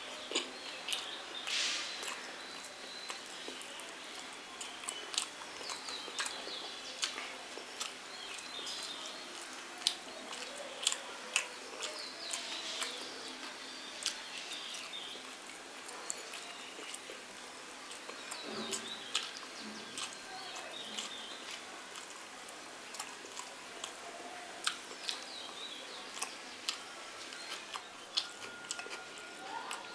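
A person chewing a mouthful of rice and egg curry, with wet mouth smacks and sharp clicks coming every second or so.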